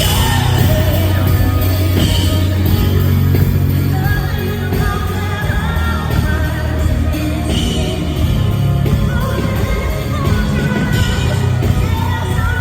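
Live band performing a country-pop song, with a woman singing lead over a heavy, steady bass and drums.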